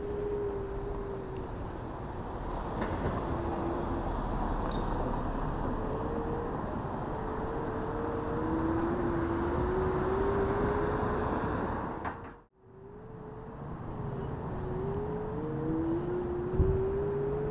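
Electric scooter's motor whining, its pitch repeatedly rising and easing with speed, over steady road noise. The sound drops out briefly about two-thirds of the way through.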